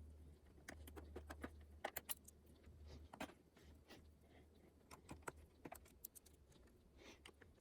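Faint, scattered small metallic clicks and taps from a small screwdriver backing tiny screws out of a laptop's bottom cover, over a steady low hum.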